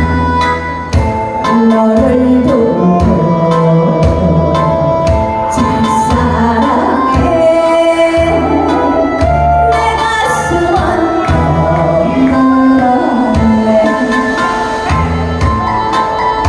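A woman singing a slow, mournful song in a clear voice into a handheld microphone, over a backing track with a steady pulsing bass beat, both coming through a PA speaker.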